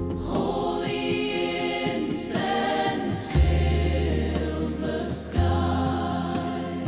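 Worship music: a choir singing long held notes with no clear words, over a deep bass that comes in strongly a little past the middle.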